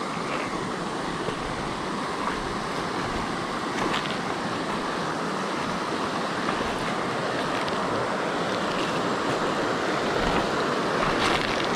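Shallow mountain stream rushing over rocks, a steady noise that grows a little louder near the end, with a couple of faint clicks.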